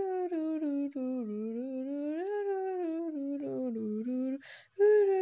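A voice humming a slow, wandering melody, the pitch rising and falling smoothly, with a short break about four and a half seconds in before the humming picks up again.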